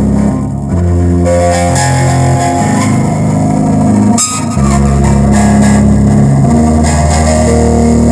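Bass-heavy music with guitar, played loud through a homemade TDA2006 amplifier and speaker in a sound test. Deep held bass notes change every second or so, with a brief break and a sharp sweep about four seconds in.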